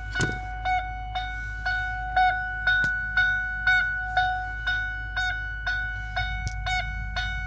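A 2001 Lincoln Navigator's electronic warning chime repeats about twice a second, a ringing tone that dings over and over.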